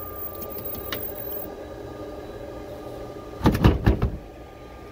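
The lid of a Glowforge Pro laser cutter being lifted open over a steady machine hum, with a click about a second in. About three and a half seconds in comes a short burst of several loud knocks and clatter.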